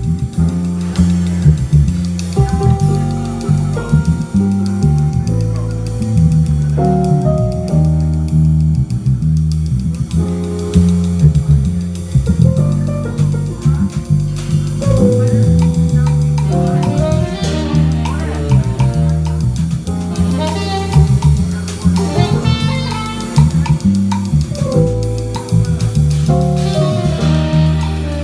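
Live band playing a funky jazz groove: a prominent bass guitar line and a drum kit keep the beat while a melody line plays on top.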